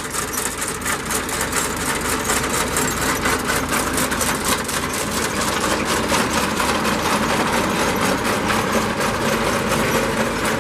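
Tractor engine running steadily, with a fast, even mechanical clatter.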